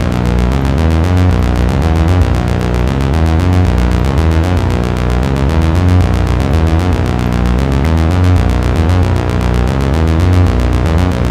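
Behringer Crave analog monophonic synthesizer playing a step-sequenced arpeggio riff: a fast, even run of repeating notes that shift in pitch, heavy in the bass.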